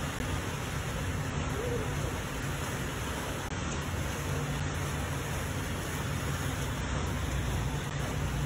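Steady rushing noise of floodwater flowing down a flooded street, with a low hum underneath.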